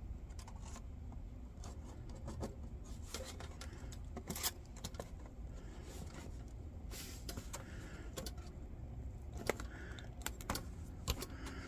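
Scattered light clicks, taps and faint scrapes of small parts being handled, over a faint low hum; the louder clicks come near the end.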